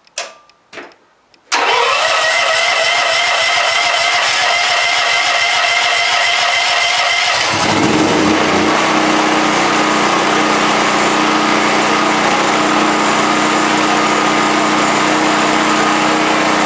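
The Raven MPV 7100's electric starter cranks its cold engine, without choke, for about six seconds. The engine then catches and settles into a steady idle.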